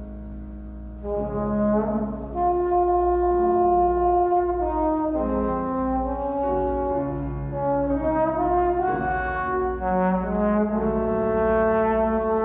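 Trombone playing a melody of long held notes with grand piano accompaniment; the trombone comes in about a second in, over a piano chord.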